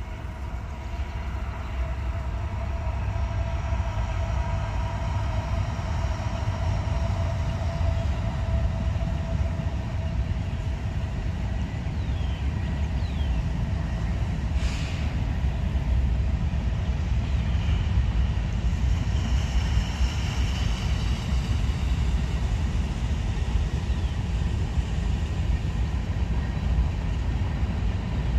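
A freight train of covered hopper cars rolling past with a steady low rumble of wheels on rail. Faint high whines come and go over it, with a brief sharper noise about halfway through.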